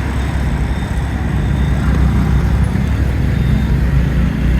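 Steady low rumble of idling and slow-moving vehicle engines in road traffic at a busy junction.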